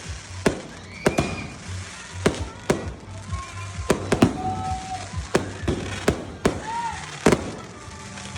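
Fireworks going off: sharp bangs in irregular succession, about one or two a second, with a few brief whistles between them.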